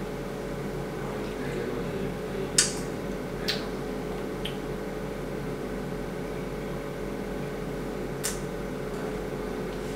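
A few short sharp clicks and taps over a steady electrical hum, as a miniature bottle of Baileys is opened and drunk from.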